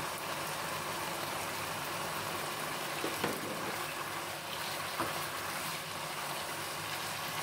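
Beef and baby-corn stir-fry sizzling and simmering in its sauce in a wok while being stirred with a spatula, a steady hiss with two light knocks against the pan about three and five seconds in.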